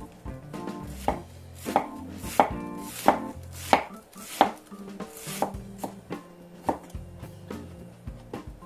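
Kitchen knife shredding a wedge of raw cabbage on a wooden cutting board: a steady chop about every two-thirds of a second, the strikes softer after the first few seconds.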